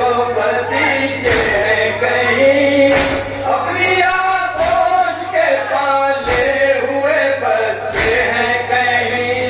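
A group of men chanting a nauha, an Urdu mourning lament, in chorus. A loud unison slap comes about every 1.7 seconds, five times, which is the rhythm of matam, chest-beating.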